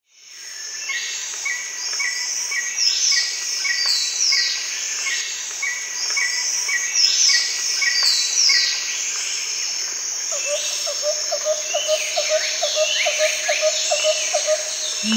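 Birds and insects calling together, fading in at the start: high falling calls and a chirp repeating about twice a second, joined about two-thirds of the way through by a steady pulsing trill.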